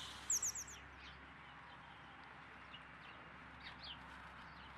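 Small birds chirping: a quick run of short, high, downward-sliding chirps in the first second that fades out, then a few faint scattered chirps over a low steady hiss.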